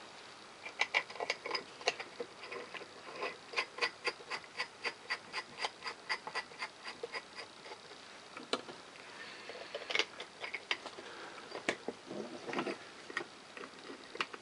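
Light metal clicks and taps, about three or four a second and uneven, as bolts and small parts of a Lister D engine's governor end cover are handled and fitted, with a few louder knocks near the end.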